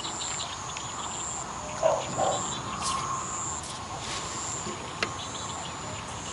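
Insects trilling high and steadily in repeated pulses, with a short two-note bird call about two seconds in and a few light clicks.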